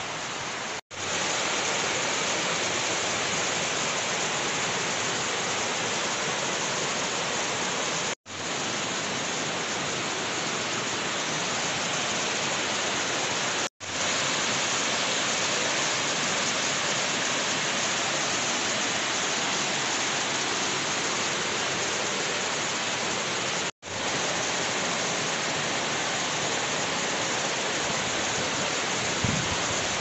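Waterfall water rushing down a steep rock face: a steady, dense rush of noise. It cuts out briefly four times where clips are joined, and a few low bumps come near the end.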